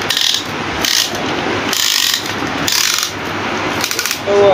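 Short metallic scraping strokes, about four of them roughly a second apart, as a piston-pin circlip is worked into the piston of an R180 diesel engine.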